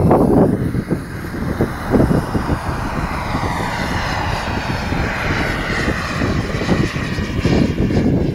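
Radio-controlled model jet flying overhead: a high whine that bends in pitch as it passes, with wind rumbling on the microphone.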